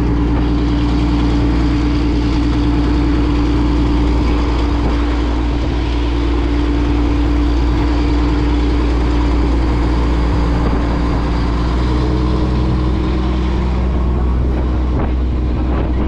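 An engine running steadily at constant speed, a low hum with a steady tone above it.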